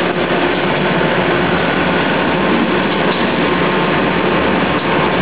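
Pet food processing line machinery running, a loud, steady mechanical noise without pauses.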